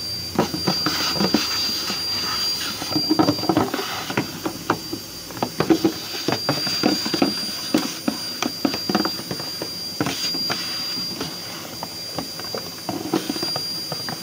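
Vacuum cleaner running with a steady high whine, vacuuming dirt out of an empty plastic air filter box, with many clicks and knocks as the nozzle works around inside it.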